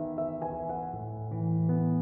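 Soft background piano music, slow sustained chords changing every second or so.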